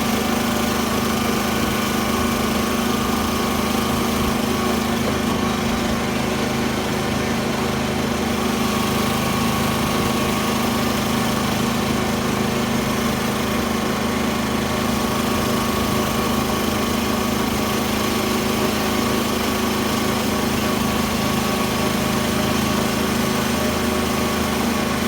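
Small farm tractor's engine running at a steady speed, an even, unchanging drone.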